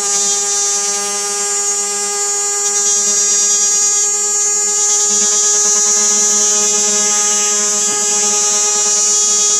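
A cicada singing: one loud, unbroken, steady buzz, its sharpest part high and hissing, over a lower droning hum.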